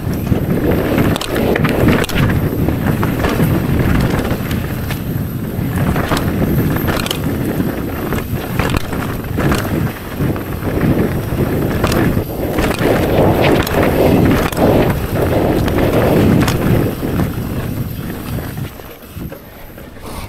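Rocky Mountain Altitude mountain bike descending a dry dirt trail: tyres rumbling over the dirt and rocks, with frequent knocks and clatter from the bike over bumps. It eases off a little near the end.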